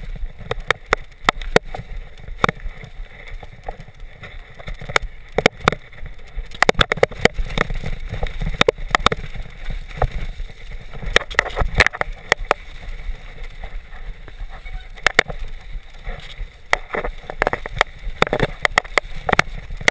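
Specialized Big Hit freeride mountain bike clattering down a rough, muddy trail: a dense, irregular run of sharp knocks and rattles from the bike over bumps, over a steady low rumble of tyres and wind on a chest-mounted camera.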